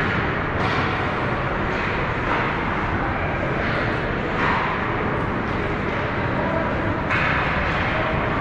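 Ice hockey rink ambience during a youth game: a steady noisy wash with indistinct voices in the arena, broken by a few short bursts of hiss about half a second, four and a half and seven seconds in.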